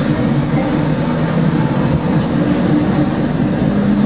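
Hong Kong light rail tram running along the track, heard from inside the car: a loud, steady low hum of several tones over an even noise.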